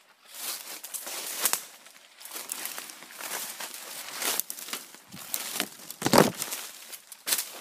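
Footsteps crunching and rustling through dry leaf litter and undergrowth, in uneven bursts, with a louder rustling thump about six seconds in.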